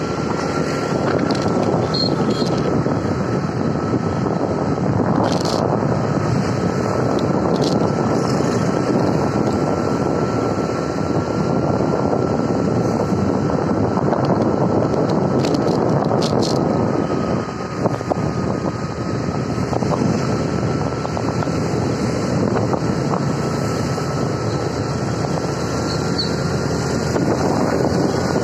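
Steady wind rushing over the microphone with engine and road noise from a moving vehicle, a loud even rumble with a thin steady whine underneath.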